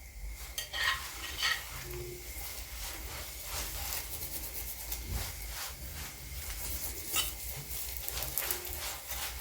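Chapati frying in freshly poured cooking oil in a flat pan: a steady sizzle with many small crackles and a few louder pops.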